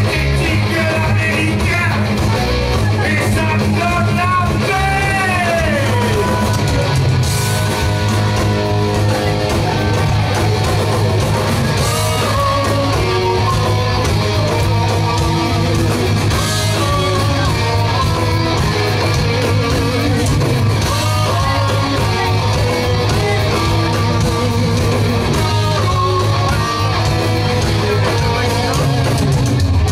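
A live rock band playing loud, with electric guitars, bass and drums, and a voice singing at times.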